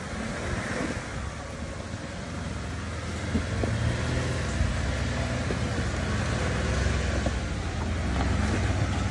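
Jeep Wrangler engine running at low crawling speed as it climbs over a rock ledge, growing louder about four seconds in, with a few light knocks.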